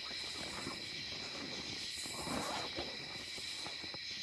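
Night insect chorus: a steady, continuous trilling at several high pitches. About two seconds in there is a brief soft rustle.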